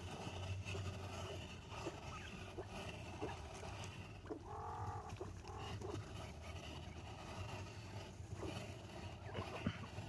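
Quail calling softly from a huddled group of adults and chicks: scattered short peeps, and one longer call lasting about a second, halfway through, over a steady low hum.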